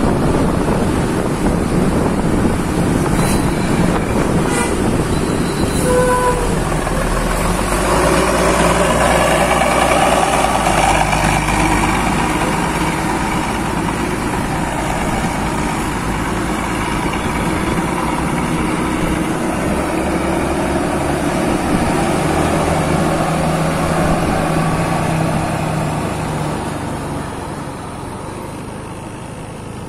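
Tour bus diesel engine running, with wind noise on the microphone for the first several seconds. A brief horn toot sounds about six seconds in.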